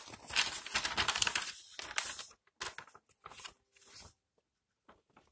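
A sheet of plain paper rustling and crinkling as it is handled, in several bursts over the first four seconds, then a few faint ticks.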